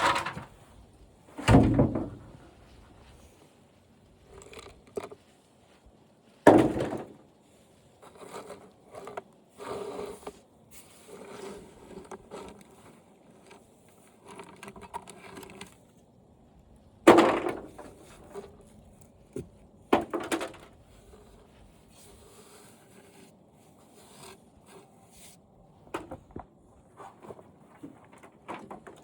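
Parts of an old glass-tube television being taken apart by hand: a few loud knocks and thuds of its plastic housing and hardware, several seconds apart, with lighter clatter and scraping in between.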